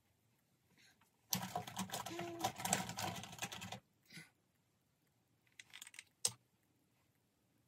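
Small hard makeup containers being handled: about two and a half seconds of clattering and clicking, then a few lighter clicks and one sharp click near the end.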